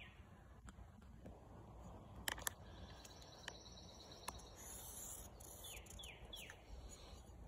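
Near silence with faint bird chirps, three short falling chirps about six seconds in. Two light taps, a moment apart, a little over two seconds in.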